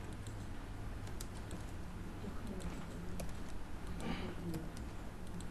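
Computer keyboard being typed on: irregular, separate key clicks as a word is entered slowly, letter by letter.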